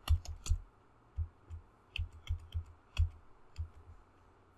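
Computer keyboard typing: a dozen or so separate keystrokes at an uneven pace, with short pauses between runs.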